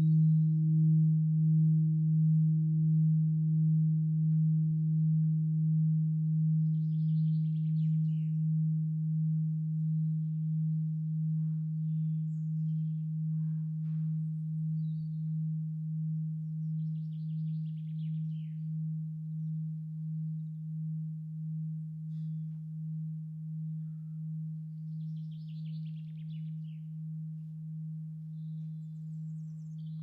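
The hum of the large cast scale-model MEMO bell (the Robert Hooke bell) dying away with no new strikes: one low steady tone with a fainter tone above it, wavering about once a second as it slowly fades.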